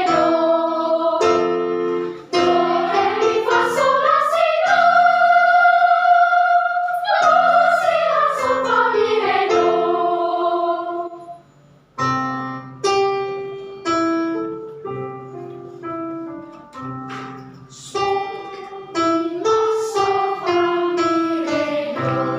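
Children's choir singing with piano, including one long held note that swells and falls away. After a brief break about halfway, a piano passage of separately struck notes follows.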